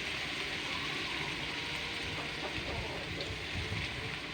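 Anchovies (ikan teri) frying in hot oil: a steady sizzle with a few faint pops.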